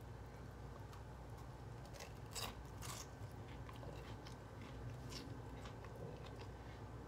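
Quiet chewing and wet mouth sounds of a person eating fettuccine alfredo, with scattered small clicks and smacks, two of them louder about two and a half and three seconds in.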